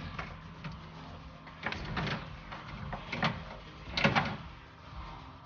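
Metal knocks and rattles as a car window regulator is worked into place inside a door's sheet-metal frame, in several bursts with the loudest clatter about four seconds in.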